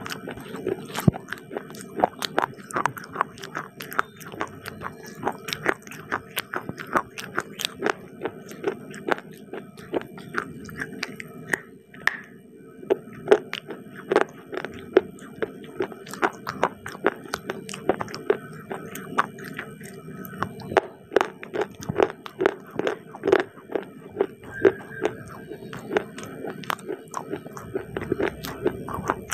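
Close-miked biting and chewing of crisp baked clay pieces: a dense, irregular run of sharp crunches, several a second.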